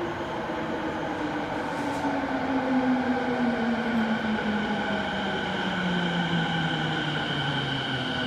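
A TWR 70-000 series electric train pulling into an underground platform. Its motors whine in a tone that falls steadily in pitch as the train brakes and slows, over the steady noise of the wheels on the rails.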